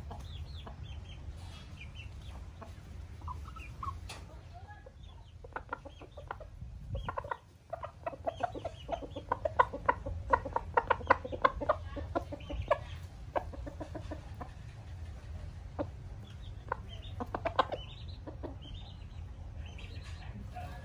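Gamecock roosters clucking, with a fast run of short clucks in the middle and scattered calls before and after, over a steady low rumble.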